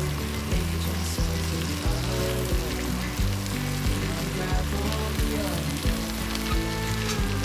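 Food sizzling as it fries in a pan, over background music with a steady beat.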